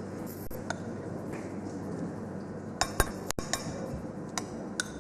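Dishes and utensils clinking in scattered light knocks over low room noise, the loudest pair of clinks about three seconds in.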